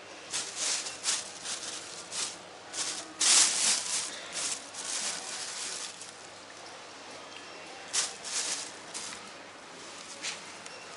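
Crinkling rustle of a bag being handled, in irregular bursts, loudest about three seconds in and again around eight seconds.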